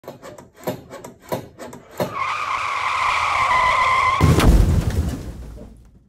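A run of quick, irregular ticks, then a long, steady, high squeal, broken about four seconds in by a heavy low thump that dies away.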